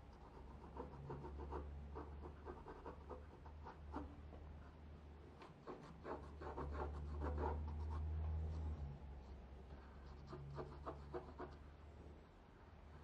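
Graphite pencil scratching across drawing paper in short sketching strokes that come in several bursts with brief pauses between them, over a faint low hum.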